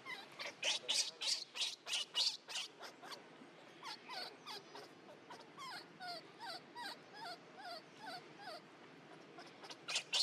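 Baby monkey crying in a run of short, high squeaks, about three a second, loudest in the first few seconds and again at the very end, with softer chirping calls in between.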